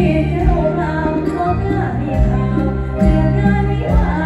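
Amplified live band music with singing, heavy in the bass, played through the stage PA of a Thai lam phloen band.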